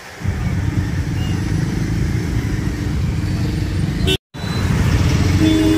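Busy road traffic: vehicle engines and road rumble in a steady din. The sound cuts out for a moment about four seconds in, and a steady pitched sound comes in near the end.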